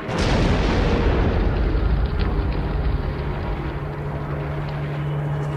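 A bomb explosion: a sudden blast whose low rumble slowly dies away over about three seconds. A steady low hum comes up near the end.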